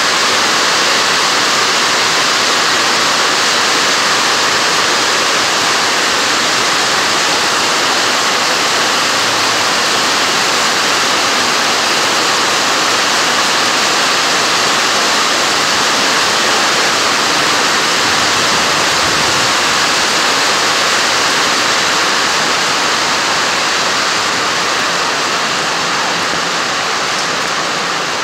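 Heavy rain pouring steadily onto the paving, a loud even hiss that eases slightly near the end.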